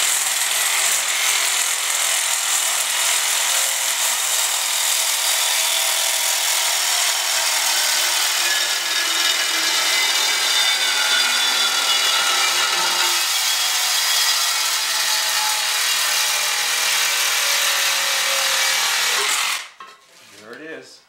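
Cordless reciprocating saw (Sawzall) with a flush-cut blade cutting through a galvanized steel pipe pole at floor level, running steadily with a shifting metallic whine, then cutting off sharply about a second and a half before the end.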